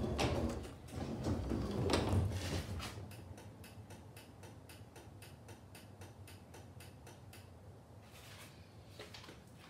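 Handling noise, then garage door springs being jiggled by hand, rattling in a fast, even run of light clicks, about five a second.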